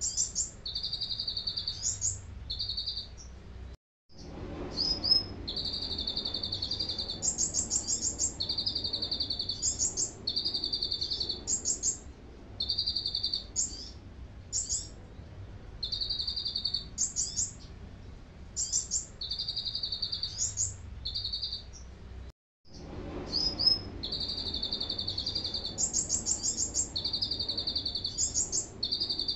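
Kolibri ninja sunbird singing canary-style song (isian kenari): fast trills and repeated high phrases with short pauses between them. The song drops out briefly to silence twice.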